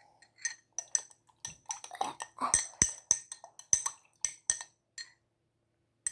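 A spoon clinking and tapping against a glass and dishes, a quick, irregular series of sharp clinks that stops about five seconds in, as honey is spooned out for the cough drink.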